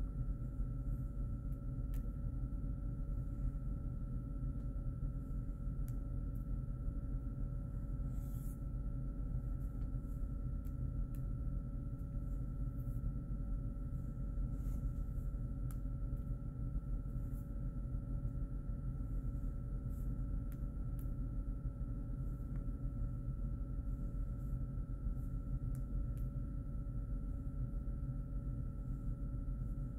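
Steady low room hum with two faint, steady whining tones above it and a few faint scattered clicks.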